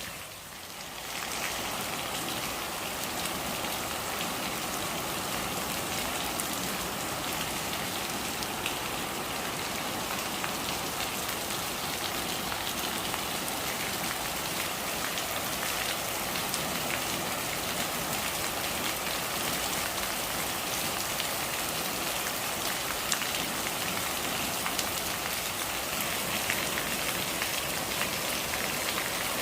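Steady rain falling on a surface, an even hiss of water with scattered individual drops ticking through it. The sound dips briefly at the start and comes back up about a second and a half in.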